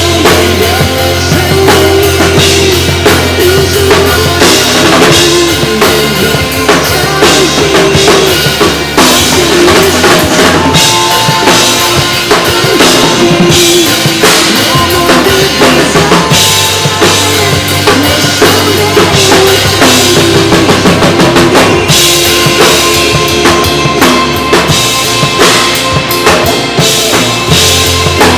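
Pop ballad music played loud, with a full drum-kit beat and sustained bass notes that change every few seconds.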